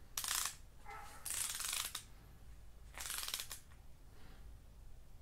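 A long torque wrench ratcheting as it tightens VR6 cylinder head bolts: three bursts of rapid ratchet clicks, each under a second long, about a second apart.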